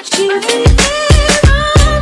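Background music: a beat-driven track with a melody line, where a heavy bass and drum beat comes in about two thirds of a second in.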